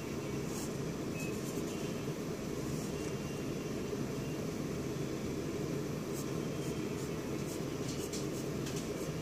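Steady low background hum, with faint short scratches of a pencil drawing on paper now and then.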